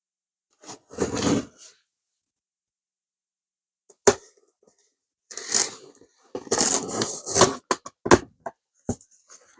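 A cardboard shipping box being opened by hand: scraping, tearing and rustling of cardboard and tape, with sharp clicks and knocks. The busiest stretch runs from about five to eight seconds in.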